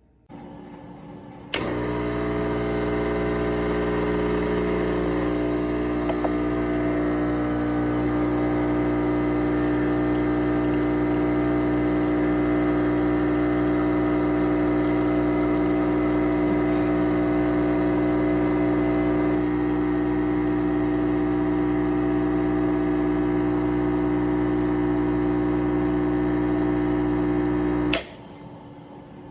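Gaggia Classic Evo Pro espresso machine's vibratory pump switched on with a click and running with a steady mains-pitched buzzing hum for about 26 seconds, then switched off with another click.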